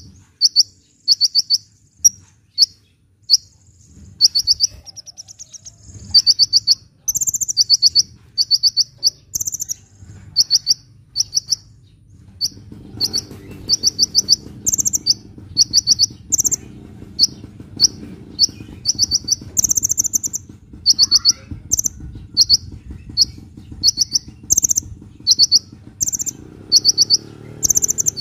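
Sunbird singing: short, very high, rapid trilled phrases repeated about once or twice a second, with a faint low background hum from about halfway in.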